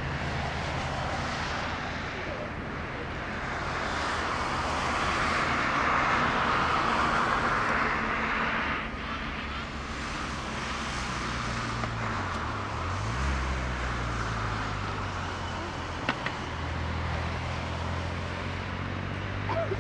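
Airbus A330-200's two General Electric CF6-80E1 turbofans at takeoff thrust during the takeoff roll: a distant, steady jet roar over a low drone, swelling for a few seconds and easing a little about halfway through.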